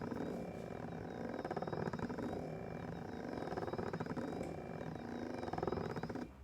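Doctor Air 3D massage seat's motor and massage rollers running with an abnormal noise, a fast, even rattle over a steady drone, which stops abruptly near the end.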